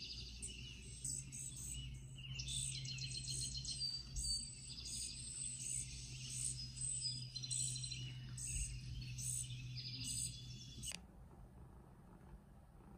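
Recorded bird chirps and tweets played through a tablet's small speaker, a run of short repeated high calls and trills over a low steady hum. The chirping cuts off abruptly about eleven seconds in.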